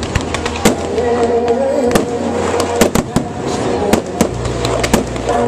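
Aerial fireworks shells bursting in irregular quick succession, about two sharp bangs a second, with gold crackling bursts among them.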